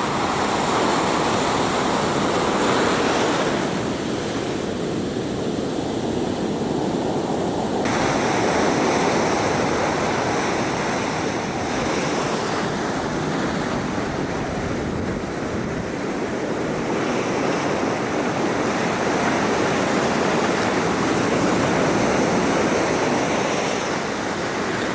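Pacific surf breaking and washing up a sand beach, a continuous rush of white water that swells and eases every few seconds.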